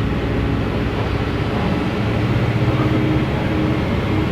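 Volksbus 17-230 city bus engine running as the bus drives, heard from inside the passenger cabin: a steady low drone that grows a little louder about two seconds in.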